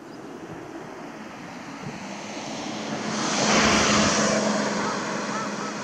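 Engine of a passing aircraft: a steady hum that grows, is loudest about three and a half seconds in, then slowly fades.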